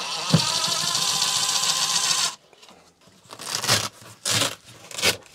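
DeWalt cordless driver running steadily for a little over two seconds as it backs out a screw, then cutting off. A few short handling noises follow.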